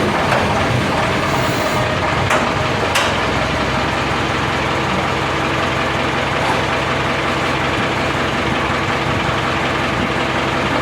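Heavy diesel engine running steadily at idle.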